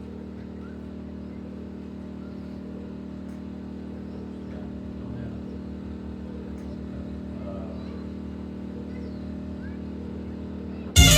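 Engine idling with a steady, even low hum. Loud hip-hop music cuts in abruptly near the end.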